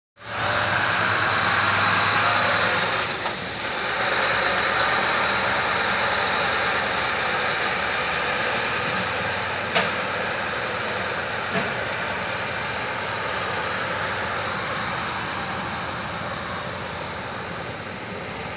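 Scania V8 diesel truck engine running steadily, heard from inside the cab as the truck moves slowly. The sound dips briefly about three seconds in, and two sharp clicks come about ten and twelve seconds in.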